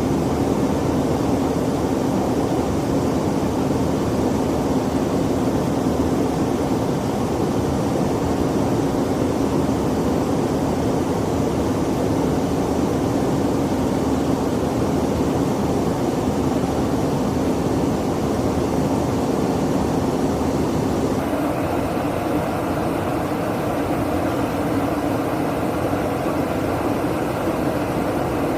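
Steady in-flight drone of a KC-135 Stratotanker heard from inside the aircraft: engine and airflow noise with a constant hum. The sound shifts suddenly about 21 seconds in, the hiss dropping and the hum rising slightly.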